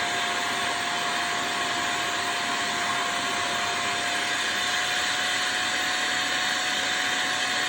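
Aimon 04 washing (wet-extraction) vacuum cleaner running steadily, its motor giving an even rush of air with a steady whine.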